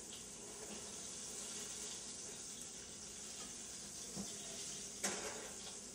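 Flour-dredged shrimp frying in hot oil: a steady, even sizzle, with one sharp click about five seconds in.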